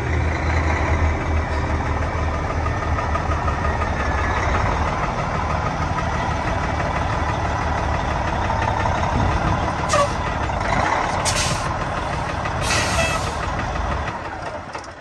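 Kenworth day cab truck's diesel engine running at idle, with three short hisses of air about ten to thirteen seconds in.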